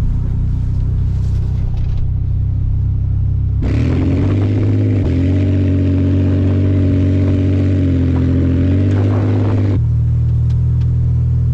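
Toyota Tacoma pickup's engine running steadily while driving on a snowy road, heard first from inside the cab as a low drone. About four seconds in, the sound switches to outside the truck, where the engine sounds fuller and tyre hiss on the snow joins it. Near the end it switches back to the low drone inside the cab.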